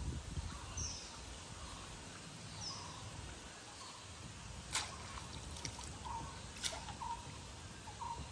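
Quiet riverside ambience with a few faint, short bird chirps, broken by two sharp taps about five and seven seconds in.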